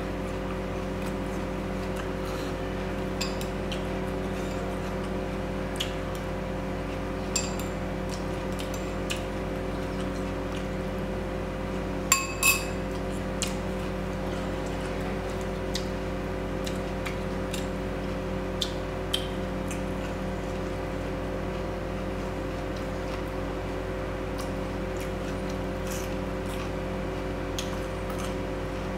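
Scattered soft clicks over a steady background hum. About twelve seconds in come two quick ringing clinks of dishware, a glass or plate being knocked.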